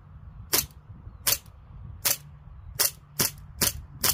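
CO2 BB pistol firing a rapid string of about seven sharp cracks, the shots coming closer together in the second half.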